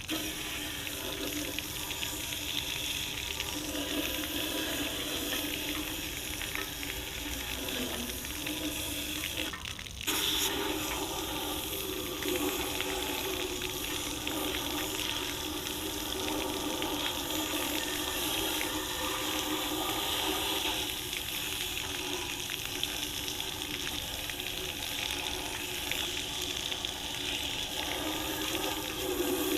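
Pressure washer running and spraying water onto a bare cast-iron engine block, a steady hiss of spray over the washer's hum, with a short break about ten seconds in.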